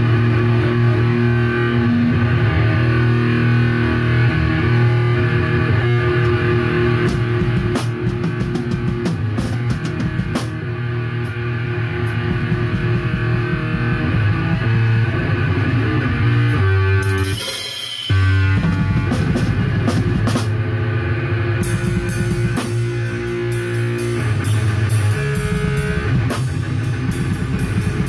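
Live rock jam: a guitar plays sustained notes while a drum kit joins in, with scattered hits at first. After a short break a little past the middle, the drums settle into a steady beat with cymbals.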